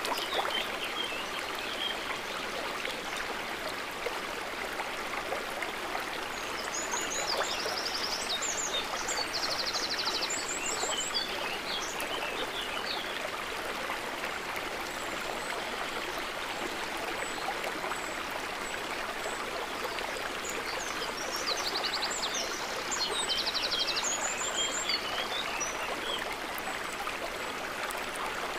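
Steady gurgling and trickling of flowing water. Two patches of quick, high chirps cut in over it, about seven seconds in and again about twenty seconds in.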